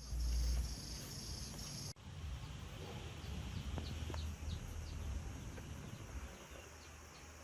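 Outdoor ambience: a steady low rumble with a high hiss that cuts off sharply about two seconds in, then the rumble goes on under a series of short, repeated high chirps.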